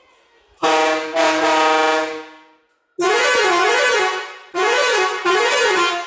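Aftermarket air horns on a Mahindra Bolero pickup, blown by pulling dashboard valve levers. First comes one long steady blast of several tones together, with a short break just after it starts. Then come two blasts whose pitch warbles up and down in a repeating musical pattern.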